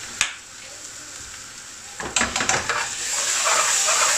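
Onion frying in an aluminium pan, with a metal spoon knocking and scraping against the pan about two seconds in as tomato ketchup is stirred through. The sizzling grows louder over the last second or so.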